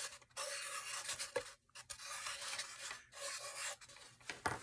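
Sharpie marker drawing on paper: several rubbing strokes about a second long with short pauses between them, and a couple of sharp taps near the end.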